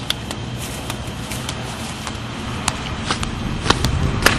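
Steady outdoor rumble and hiss on a handheld camcorder's microphone, with scattered sharp taps of footsteps on pavement that come more often and louder near the end.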